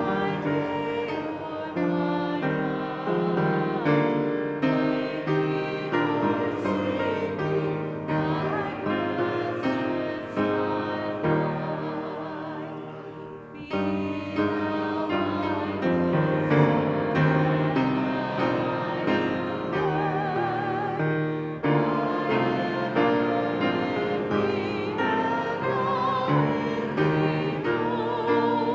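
Slow music with a melody that wavers in pitch over piano accompaniment. It fades briefly about halfway through, then comes back in full.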